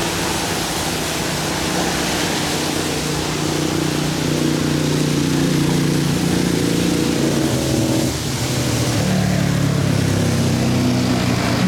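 Steady engine noise with several low droning tones over a broad rush, the tones shifting a little in pitch about eight seconds in.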